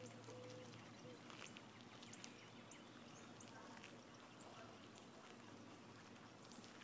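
Near silence: faint outdoor ambience with a low steady hum, scattered light clicks and short faint high chirps.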